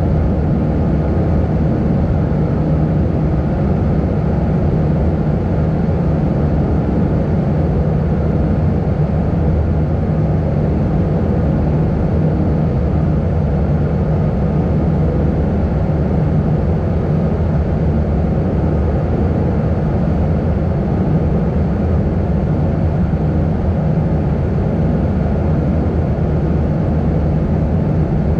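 Airbus airliner's jet engines and airflow heard from inside the cabin in flight: a steady low drone with a faint steady hum in it.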